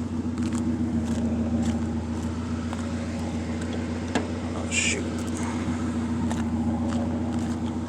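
Acura Integra's four-cylinder engine idling steadily. A short high chirp sounds a little under five seconds in.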